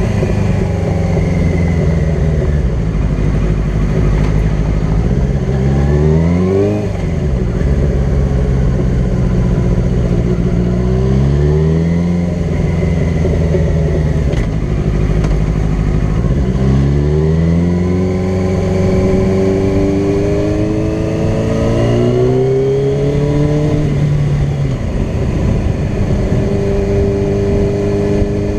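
Sport bike engine pulling through the gears at highway speed, its pitch climbing and then dropping back at each upshift several times, over wind and road noise.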